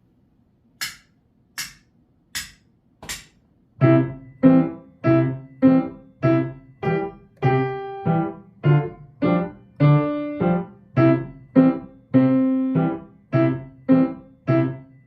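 Four sharp count-in clicks, then a piano playing a simple march, one chord struck on each beat at an even walking pace.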